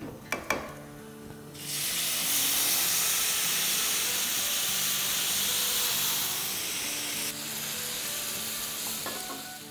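Liquid tomato purée poured into a pan of rice toasting in hot oil, setting off a loud hissing sizzle about a second and a half in. The hiss drops after several seconds and tapers off as the liquid takes the heat out of the pan.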